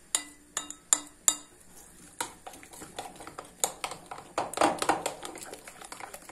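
Metal spoon stirring a thick yogurt, flour and egg-yolk mixture in a glass bowl, clinking against the glass. A few separate sharp clinks, some ringing briefly, come in the first second or so; after that the strokes turn quicker and denser, with wet scraping between the clinks.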